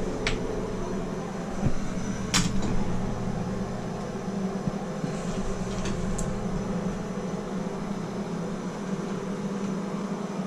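Plumber's soldering torch flame burning steadily while heating a copper fitting, with a couple of light clicks about two seconds in.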